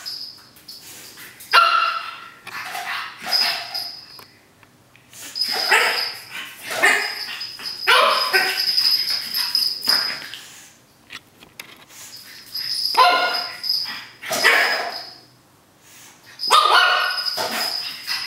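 Three-month-old pug puppy play-barking and yipping in short bouts, about seven times, with quiet gaps between.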